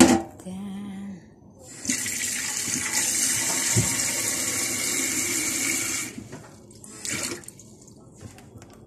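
Tap water running into a stainless steel kitchen sink for about four seconds, starting about two seconds in and shutting off sharply. A knock at the very start.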